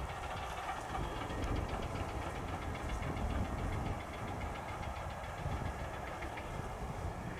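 Diesel engine of an aircraft tow tractor running steadily under load as it tows an airliner.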